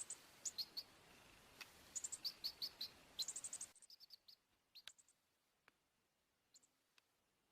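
Baby chick peeping: runs of short, high peeps, fainter and sparser in the second half, over a steady hiss that drops out about halfway through. A few faint clicks come in between.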